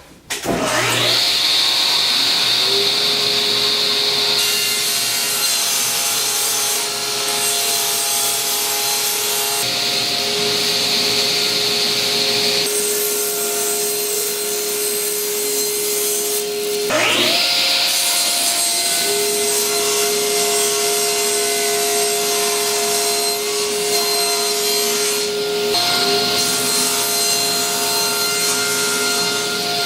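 Electric saw cutting Baltic birch plywood: the motor spins up with a rising whine, runs steadily through the cut, and spins up again with another rising whine about 17 seconds in.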